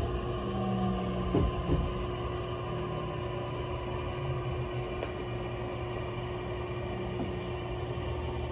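In-cabin running sound of an early-type Tokyu 7000 series electric train (set 7107F, Toshiba IGBT VVVF): a steady whine from the traction drive over wheel-on-rail rumble, running at an even speed. Two knocks come about a second and a half in.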